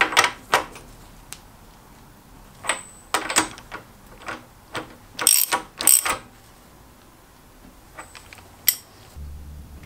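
Socket ratchet clicking in short bursts as half-inch BSP hose fittings are screwed into an oil cooler sandwich plate, metal on metal; the loudest bursts come a little past halfway.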